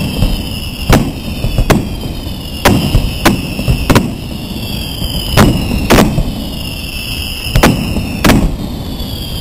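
Fireworks display going off: about a dozen sharp bangs at irregular intervals, echoing off the street's buildings, over a run of repeated falling whistles.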